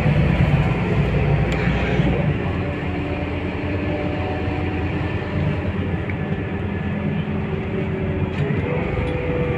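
Cabin noise of a Scania K230UB city bus under way: the rear-mounted five-cylinder diesel and drivetrain run with a steady low rumble. A whine rises a little and holds near the end.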